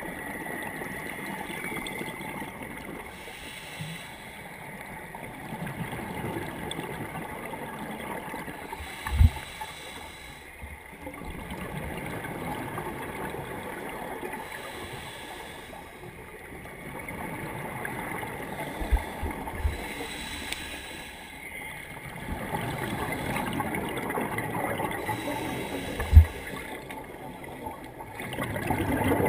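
Underwater noise heard through an action camera's waterproof housing: a muffled watery rushing and gurgling that swells and eases, with a few dull low thumps, the loudest near the end.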